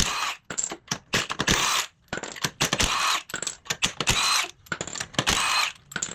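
Impact wrench working lug nuts in a series of short bursts, about one a second, each with a high whir.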